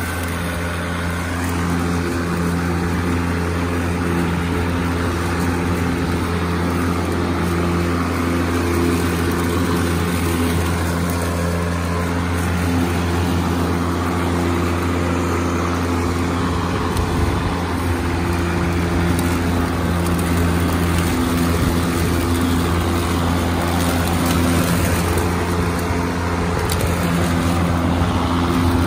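Ryobi 40-volt 20-inch brushless battery push mower running while cutting grass: a steady electric motor and blade hum with a few even tones over a rushing noise.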